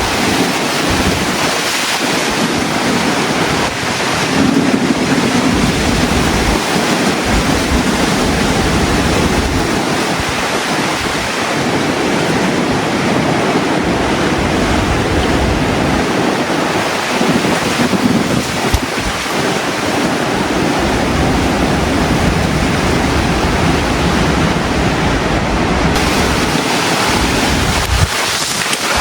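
Typhoon wind gusting and buffeting the microphone over a steady, loud rushing hiss.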